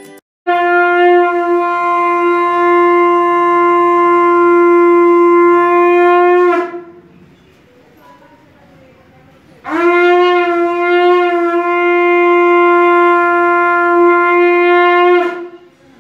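Conch shell (shankha) blown in two long, steady blasts of about six seconds each, with a pause of about three seconds between them, sounded as the temple altar is opened for darshan.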